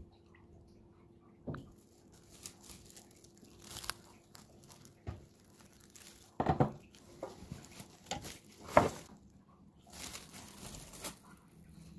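Plastic cling film being handled and stretched over a metal baking tray, in a run of irregular rustles with two louder ones in the middle of the stretch.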